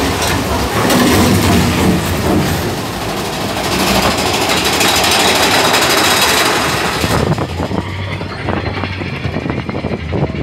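Mine-train roller coaster cars running along the track with a loud rumbling rush inside the tunnel. About seven seconds in it eases to a rapid rattle of clacks from the wheels and cars as the train comes out into the open.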